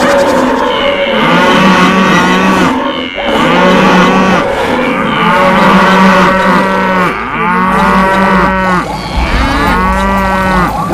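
Cattle mooing: a string of long, low moos, one after another and sometimes overlapping.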